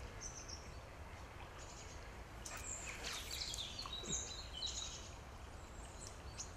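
Small birds chirping and whistling in short high calls, bunched in the middle, over a faint low steady background. One brief sharp tick about four seconds in.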